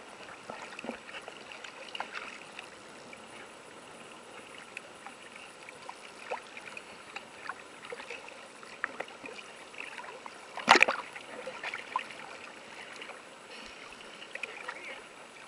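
Sea water lapping and splashing right at a camera held on the surface while a dog and a person swim close by, with scattered small splashes and crackles and one sharp, loud hit about eleven seconds in.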